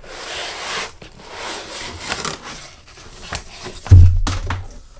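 Cardboard scraping and rustling as the inner packaging is slid out of a cardboard box, then, about four seconds in, a loud deep thump as the foam-packed laptop drops out onto the table.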